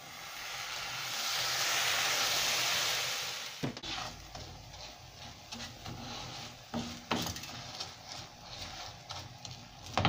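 White wine poured onto rice toasting in a hot dry frying pan hisses and sizzles, swelling and then dying away after about three and a half seconds. Then a wooden spoon stirs the rice around the pan, making scattered scrapes and clicks.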